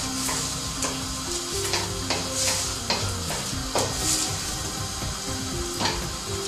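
Tomato and egg sizzling in a hot wok while a spatula stirs and tosses them, with repeated scrapes and clacks of the spatula against the pan.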